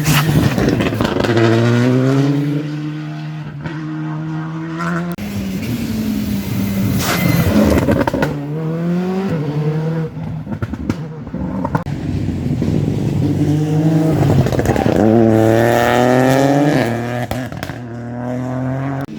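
Rally car engine revving hard and climbing through the gears, its pitch rising and dropping back at each gearshift, with a few sharp cracks between the shifts.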